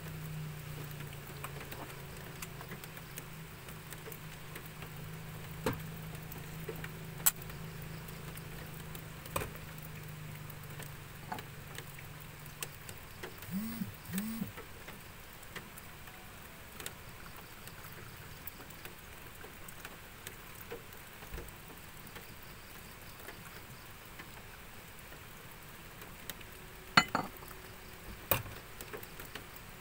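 Light rain: scattered drips and ticks over a soft patter, with a low hum that fades out about halfway. Near the end come two sharp metal clanks as the aluminium moka pot is set down by the stove.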